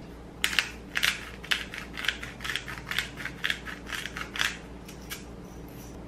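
Black pepper grinder twisted by hand, crunching peppercorns in a quick irregular series of crisp grinds that lasts about four seconds.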